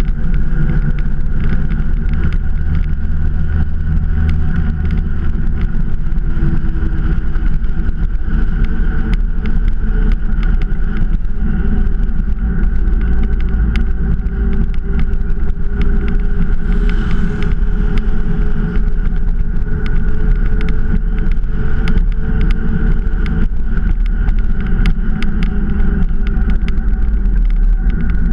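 Motorcycle engine running steadily while riding, over a constant low rush of wind and road noise; the engine note climbs slowly through the middle as the bike gathers speed.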